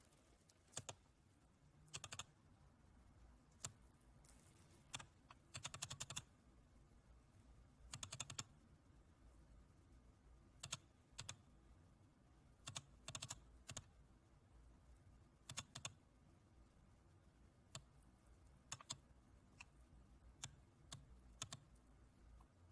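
Computer mouse buttons clicking: single clicks, double clicks and quick runs of several, at irregular intervals over a faint steady hiss.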